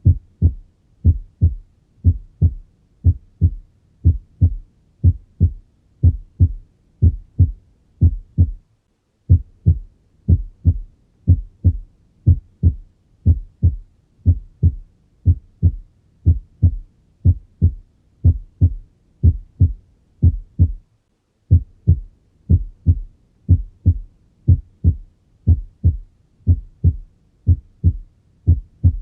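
Normal heart sounds on cardiac auscultation: a steady, regular lub-dub. The first sound (S1) marks closure of the mitral and tricuspid valves and the start of systole; the second (S2) marks closure of the aortic and pulmonary valves and the start of diastole. The beating is broken by two short silent gaps.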